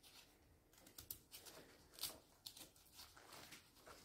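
Faint, irregular scrapes and clicks of a small hand blade peeling a raw potato.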